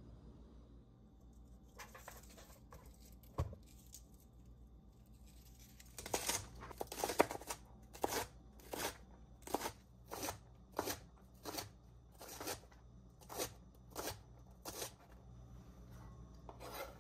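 Kitchen food preparation: a few scattered cutting strokes and a single knock, then a steady run of even cutting strokes, about three every two seconds.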